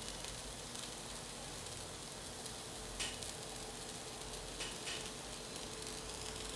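Steam hissing steadily from the nozzles of a spinning tin-can aeolipile as the water inside boils, with a few faint pops about three and five seconds in.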